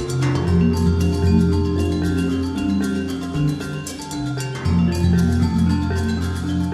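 Background music: a mallet-percussion melody over a sustained bass line, with light ticking percussion.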